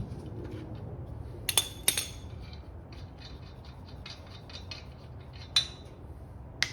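Metal tools and parts clinking and clicking: four sharp clinks with a run of lighter ticks between them.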